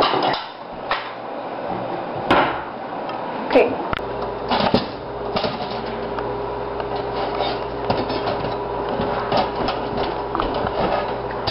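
Dinner plates clattering and knocking as they are taken down from a kitchen cupboard, with several sharp knocks. About four seconds in, a steady low hum begins with scattered light clicks and taps.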